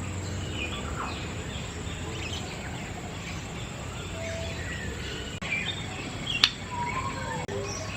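Several birds calling at once: scattered short chirps and whistles, some gliding in pitch, over a steady low hum and a thin high whine. A single sharp click about six and a half seconds in.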